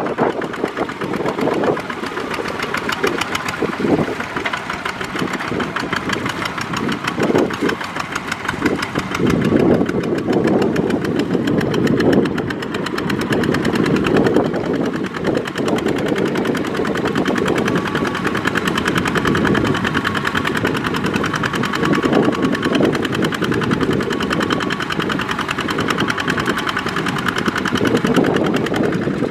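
Two-wheel walking tractor's single-cylinder diesel engine running under load with a fast, even knocking beat as it drags its trailer through deep paddy mud.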